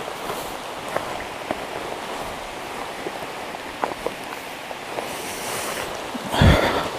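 Steady rain falling, with scattered louder drops tapping close by. Near the end a short rustle and a low thump stand out above the rain.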